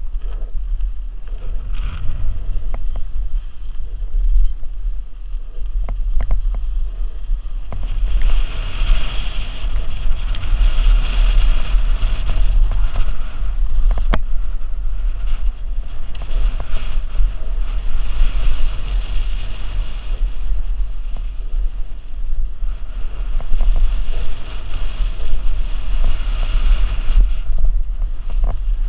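Wind buffeting a helmet-mounted action camera's microphone over the rumble of knobby mountain-bike tyres on a gravel and dirt downhill trail. It grows louder in several swells from about eight seconds in, with a few sharp knocks from the bike over bumps.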